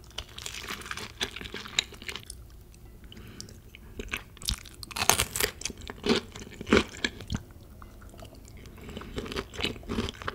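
Crunchy bites and chewing of food, with a run of louder crunches about halfway through.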